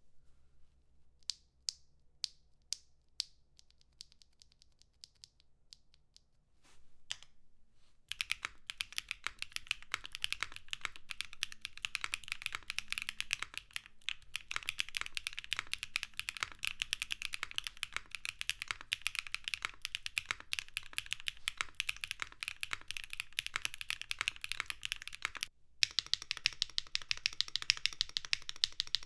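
Mechanical keyboard with Keygeek Keylin linear switches (nylon housings, UPE stems, factory-lubed) in a Neo65 being typed on. It starts with a few separate keystrokes, then turns into fast, continuous typing about eight seconds in, with a brief pause near the end.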